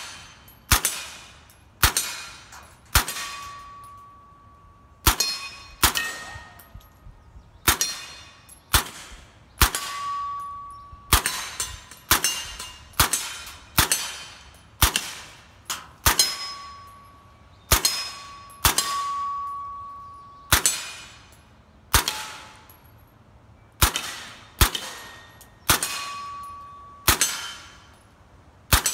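Suppressed Sig MPX-K fired in single shots, about one a second, each muffled shot followed by the clang of the bullet hitting a steel target, which rings on briefly.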